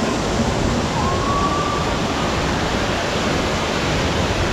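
Artificial waterfalls pouring over rockwork into a shallow pond, a steady rush of falling water. A short faint tone rises slightly about a second in.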